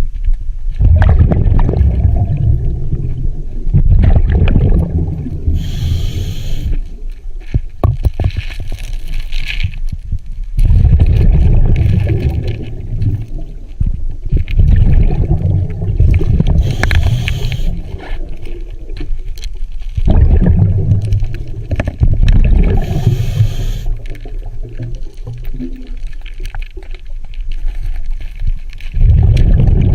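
Scuba diver breathing through a regulator underwater: a short hiss on each inhale alternating with several seconds of rumbling exhaled bubbles, in a slow repeating cycle.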